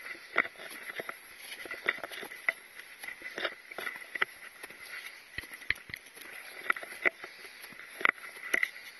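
A hiker's footsteps on a snowy mountain trail: irregular steps, roughly two a second.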